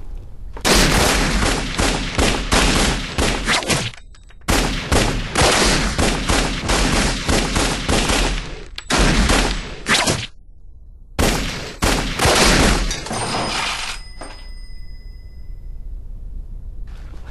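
Rapid movie gunfire: long volleys of many shots in quick succession, broken by brief pauses. The firing stops about 14 seconds in, leaving a few thin ringing tones.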